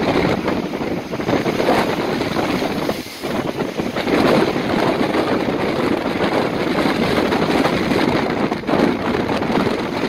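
Big waves breaking and washing against the stepped concrete side of a breakwater, a continuous rushing surf with a brief lull about three seconds in, with strong wind buffeting the microphone.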